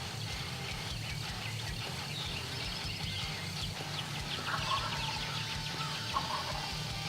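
Songbirds chirping throughout, with an eastern wild turkey gobbler calling about four and a half seconds in and again briefly near the end.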